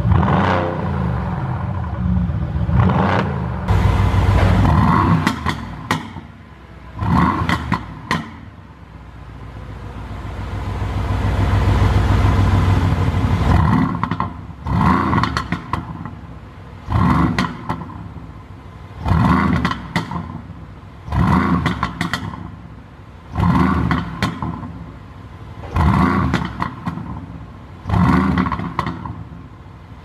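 Mercedes-AMG GT S 4.0-litre twin-turbo V8 revved while stationary, each rev dropping off into a burst of crackles and pops through the exhaust: a pops-and-bangs tune. One long, slow rise comes about midway, then short blips about every two seconds.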